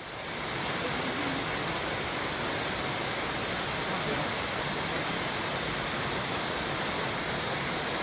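Steady rush of running water from a rainforest stream, an even hiss and roar that fades in at the start and then holds level.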